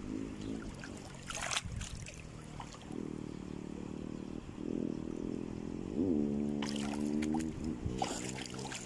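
Feet wading through shallow seawater, with a few short splashes and trickling water, over a low, steady melody.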